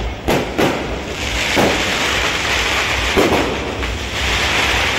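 A few loud, irregularly spaced bangs, each with a short booming tail, over a steady low rumble and a din of background noise.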